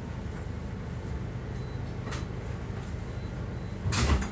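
Steady low background hum, with a light click about two seconds in and a louder knock near the end.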